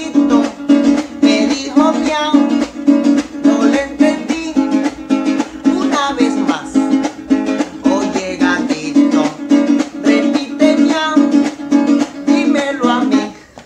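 A small acoustic guitar strummed in a fast, steady rhythm, with a man singing a tune over it; the playing stops at the very end.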